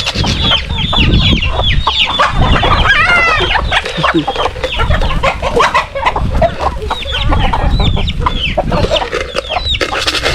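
A flock of chickens clucking and squawking while being chased to catch one, many short calls overlapping throughout.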